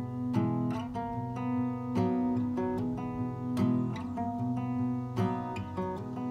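Capoed acoustic guitar fingerpicked: a steady pattern of single plucked notes over a low note that keeps ringing.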